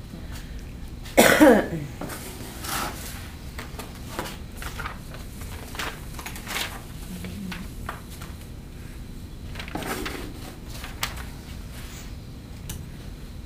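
Sand poured from a metal can into a bucket hung beneath a balsa model bridge, loading it for a strength test, with scattered clinks and scrapes of the can. About a second in there is a loud short sound falling in pitch, and a weaker one near the end.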